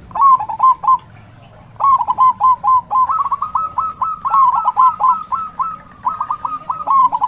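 Zebra dove singing: quick runs of short, clipped cooing notes at one pitch, in three phrases. The first is brief, a long run starts about two seconds in, and another begins near the end.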